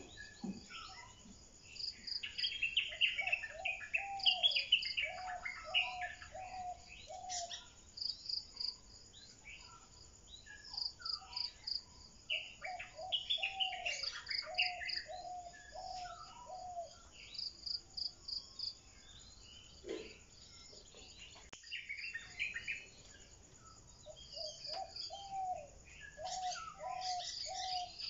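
Birds calling and singing together: three bouts of about five low whistled notes in a row, with warbled phrases and rapid high chirping trills over them.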